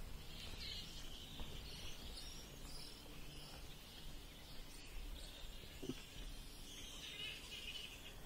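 Faint chattering, squabbling calls of a grey-headed flying-fox colony, strongest just after the start and again near the end. A low rumble of breeze on the microphone runs underneath.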